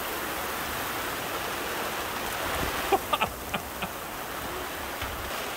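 Rain pouring down on a sailboat's cockpit and its canvas-and-vinyl enclosure, a steady, dense hiss.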